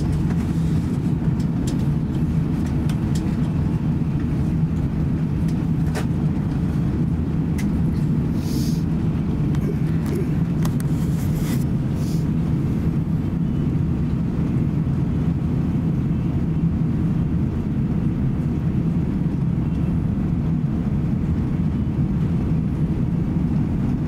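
Cabin noise of an Airbus A350-900 taxiing: the steady low hum of its Rolls-Royce Trent XWB engines at taxi power and the airframe rolling along the taxiway. A few small clicks and rattles come in the first half, then stop.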